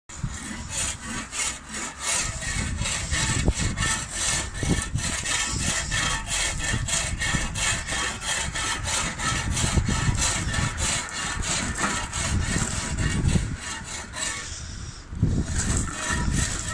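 Push broom sweeping grit and gravel across a flat roof: rapid, repeated scraping strokes, about three a second, with a brief pause near the end.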